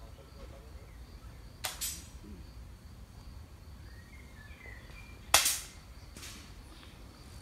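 Air rifle shots: a sharp crack about a second and a half in and a louder one about five seconds in, each followed shortly by a fainter sharp sound.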